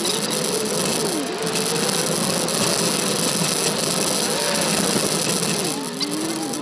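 Turbocharged Subaru Forester's flat-four engine running as it drives a rough dirt trail, its pitch rising and falling again and again with the throttle, over a steady rush of wind and road noise at the roof-mounted camera.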